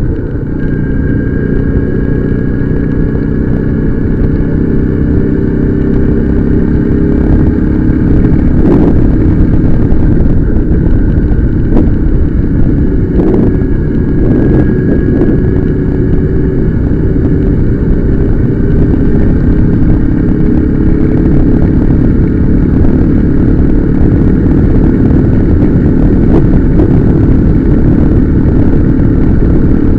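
Motorcycle engine running steadily while riding, its pitch drifting slowly up and down with road speed, with a few short knocks between about nine and fifteen seconds in.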